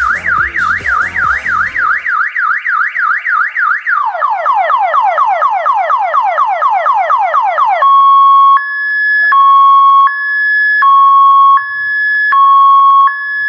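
Electronic multi-tone siren horn cycling through its patterns. First comes a fast up-and-down warble at about four cycles a second. About four seconds in it changes to a quick falling whoop repeated about four times a second. Nearly eight seconds in it switches to a two-tone hi-lo that alternates about every three-quarters of a second.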